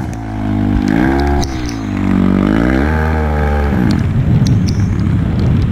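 Off-road motorcycle engine revving up and down as the bike climbs a muddy trail, its pitch rising and falling twice. About four seconds in it turns to a rough, choppy low rumble.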